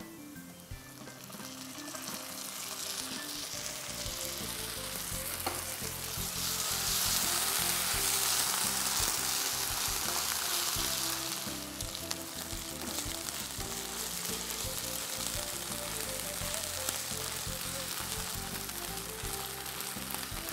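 Onions and ginger-garlic paste sizzling in hot oil in a frying pan, stirred with a spatula. The sizzle swells from about two seconds in, is loudest around the middle, then settles to a steadier frying hiss.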